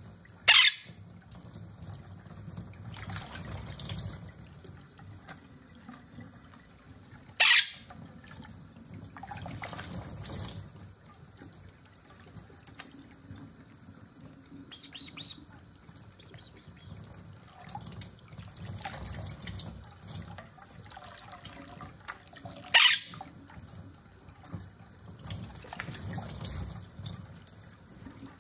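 A Quaker parrot bathing in a shallow plate under a thin stream from a kitchen faucet: steady trickle of running water, with bouts of splashing lasting about a second each. Three short, sharp, loud sounds stand out, one just after the start, one about a quarter of the way in and one about four-fifths of the way through.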